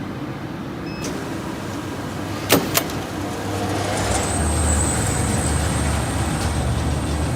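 Box adhesive-tape applying machine: two sharp clicks about two and a half seconds in, then about four seconds in its motor-driven conveyor starts with a steady low hum and a thin high whine.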